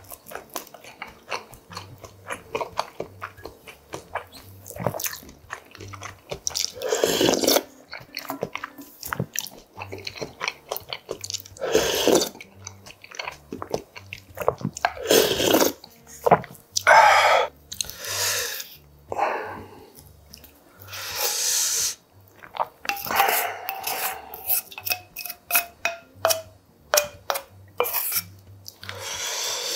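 Close-miked eating sounds of a man eating spicy Korean beef soup (yukgaejang). He slurps broth from a wooden spoon several times and chews, and the wooden spoon clicks against stainless steel bowls.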